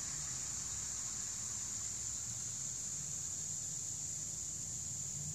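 Steady high-pitched insect chorus, a continuous drone with no breaks, over a faint low rumble.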